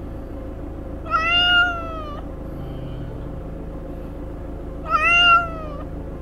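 A Scottish Fold cat meowing twice from inside its pet carrier, two drawn-out calls of about a second each, the first about a second in and the second near the end, each falling slightly in pitch as it ends. A steady low hum runs underneath.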